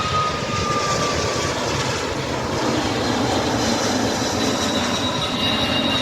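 Boeing 767 jet engines as the airliner arrives: a loud, steady roar with high whining tones that drift slowly down in pitch.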